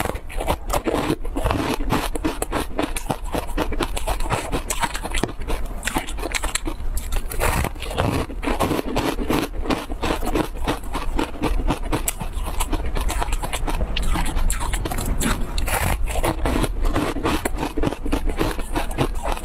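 Close-miked eating: a crumb-coated ice cream block being bitten and chewed, with dense crackly crunching that goes on throughout.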